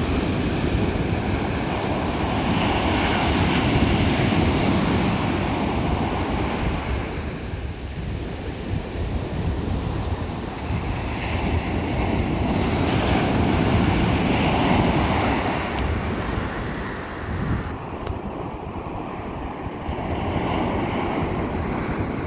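Ocean surf breaking on a sandy beach, the wash swelling and easing as successive waves come in, with about three strong surges.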